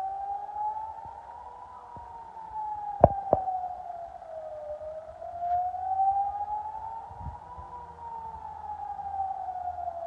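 Civil-defence warning siren wailing, its pitch slowly rising and falling, about six seconds to each rise and fall. Two sharp knocks about three seconds in.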